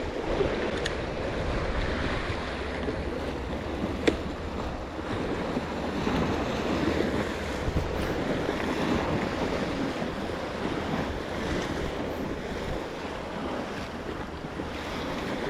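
Sea waves washing against a rocky shore, a steady surf with wind buffeting the microphone. A sharp click about four seconds in and a fainter one near the start.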